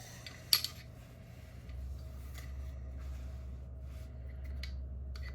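Hands working on a metal track light fixture: one sharp click about half a second in, then light scattered clicks and handling sounds over a steady low hum.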